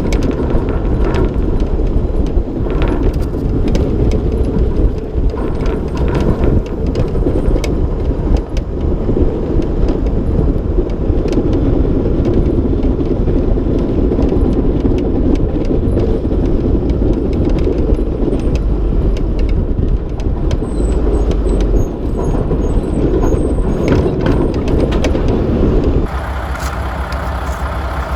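Diesel engine of a Mack snowplow truck idling steadily, with scattered short knocks and clanks over it. The sound changes abruptly near the end.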